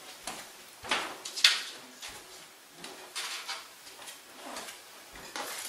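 Kitchen handling noises: scattered light knocks and short rustling strokes, loudest about a second in.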